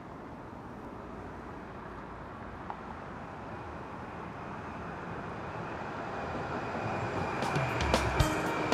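Street traffic ambience: a steady rushing noise that swells gradually. Near the end, music comes in with sharp percussive taps.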